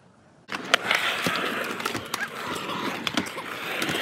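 Skateboard wheels rolling on the concrete of a skatepark bowl: a steady rolling noise with scattered clicks and clacks, starting suddenly about half a second in.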